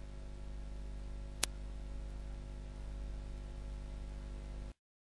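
Steady electrical hum and hiss from a computer microphone's background, with a single mouse click about one and a half seconds in; the sound cuts off suddenly near the end.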